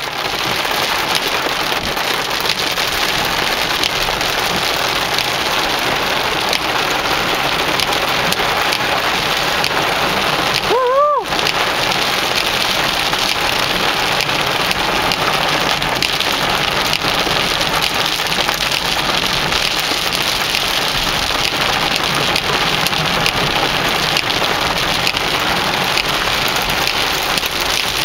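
Heavy rain pelting a car's roof and windshield, heard from inside the cabin as a steady, loud hiss. About eleven seconds in, a brief squeak rises then falls in pitch, then the sound drops out for an instant before the rain resumes.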